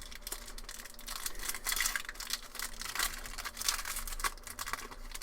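Foil Pokémon booster pack wrapper being crinkled and torn open, a busy run of crackles and small clicks.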